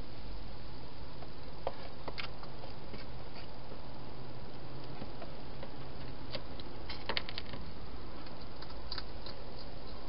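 Hedgehog eating from a bowl inside a plastic feeding station: scattered small clicks and crunches, a few around two seconds in and a quick cluster about seven seconds in, over a steady hiss.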